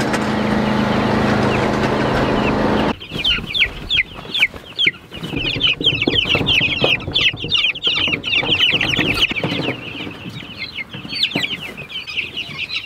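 A steady engine hum that cuts off about three seconds in, then a crowd of three-week-old red broiler chicks peeping continuously with short, high, falling calls, with a few knocks among them.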